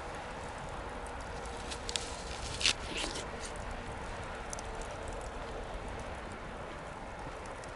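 Wood fire crackling: a steady low hiss with scattered small ticks and a cluster of sharp pops about two to three seconds in.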